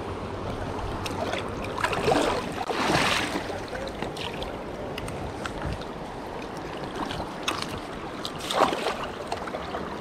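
Creek water flowing steadily around the legs, with splashing as hands work a freshly caught silver salmon in the water to bleed it; the loudest splashes come about two and three seconds in and again near the end.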